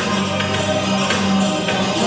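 Instrumental introduction of a song: sustained chords over a steady percussion beat.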